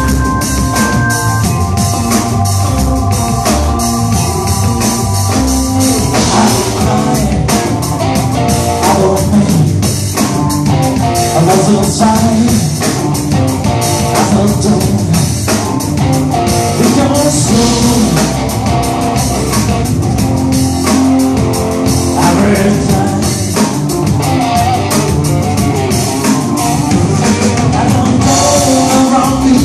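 Live blues-rock band playing: electric guitar, electric bass, drum kit and Hammond-style organ. Held organ chords in the first few seconds, then the full groove with a man singing.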